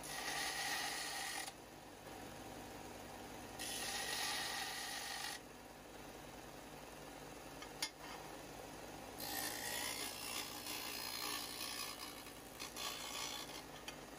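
Steel piece being ground on a running WEN belt and disc sander, cleaning up the edges of a plasma-cut wrench: two bursts of grinding in the first five seconds, a sharp click near eight seconds, then a longer, uneven stretch of grinding against the sanding disc, over the sander motor's steady hum.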